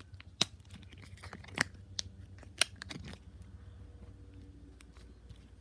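Sharp plastic clicks and taps as a soft plastic case is pulled off an iPhone 5s and the bare phone is handled on a cloth-covered table. There are five or six clicks in the first three seconds, then only faint rustling.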